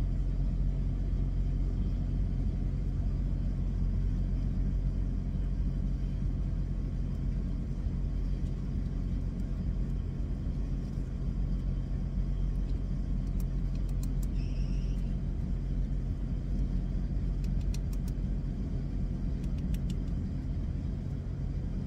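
Steady low rumble of an idling truck engine. Partway through there are a few faint clinks of a spoon against a metal pan or can.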